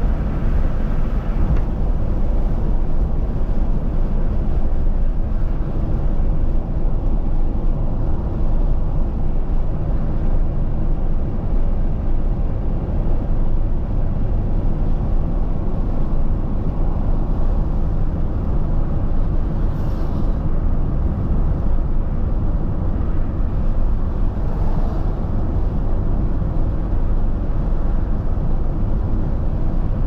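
Steady road and engine noise heard inside a car's cabin while driving at highway speed, with a couple of faint brief swells.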